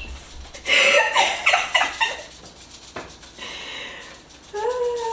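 Two women laughing, loudest about a second in, with a brief high-pitched held vocal sound near the end.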